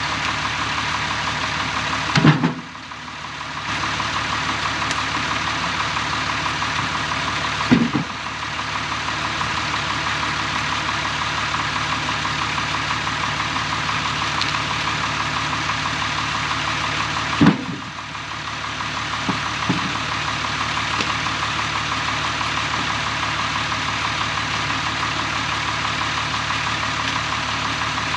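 Tractor engine idling steadily, with several heavy thuds as firewood rounds are dropped into the loader's steel bucket.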